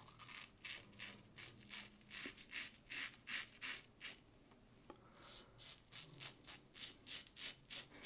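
Merkur 37C slant safety razor with a Derby blade scraping through lather and slightly long stubble in quick, short strokes, about three a second, with a brief pause about four seconds in.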